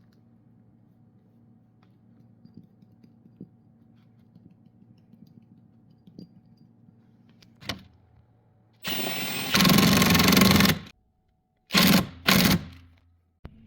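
A power tool run in short bursts: one of about two seconds that gets louder partway through, then two brief bursts, after a faint steady hum.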